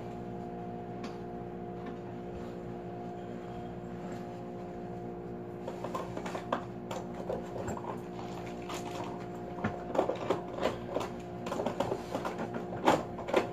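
A steady machine hum made of several held tones, with knocks, clicks and rustles of belongings being handled starting about six seconds in and getting busier near the end.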